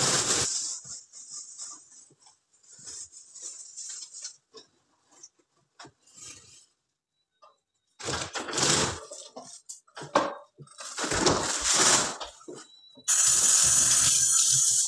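Kitchen prep handling noises: intermittent scrapes and clatters of utensils and dishes with short quiet gaps. About two seconds before the end, a steady rushing noise sets in and holds.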